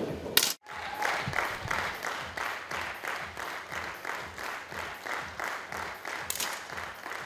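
A crowd clapping in unison in a steady rhythm, about three claps a second. About half a second in there is a short loud burst and a brief dropout.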